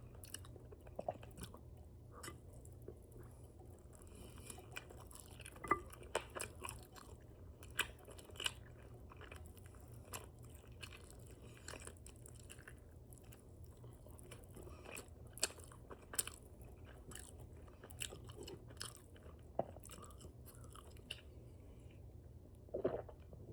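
Close-up open-mouthed chewing of spicy chicken wings: wet smacking and crunching, with short clicks at irregular intervals over a low steady hum.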